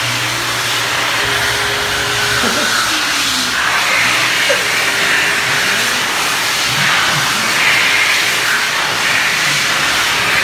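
High-speed electric hand dryer blowing: a loud, steady rush of air.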